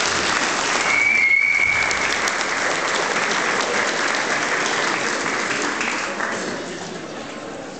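Audience applauding in a large hall at the end of a performance, dense clapping that fades out near the end. A short high steady tone sounds over it about a second in.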